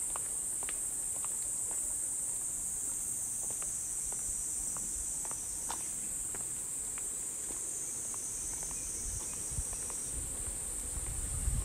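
Cicadas droning in a steady, high-pitched chorus, with light footsteps clicking on a stone path. A low rumble comes in near the end.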